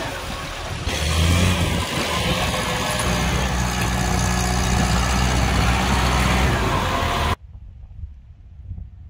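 Farm tractor's diesel engine running under load as its front dozer blade pushes a mound of soil, a steady engine note that gets louder about a second in. It cuts off suddenly about seven seconds in, leaving faint wind and outdoor noise.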